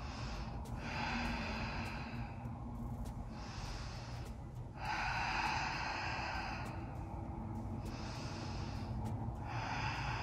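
A woman breathing audibly while holding a yoga pose: slow breaths in and out, about five in all, each lasting one to two seconds.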